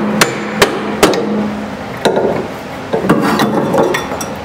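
Hammer blows on the bottom of a car's rear shock absorber to knock it off its lower mounting stud: three sharp metal strikes in quick succession, then lighter irregular clanks as the shock comes loose.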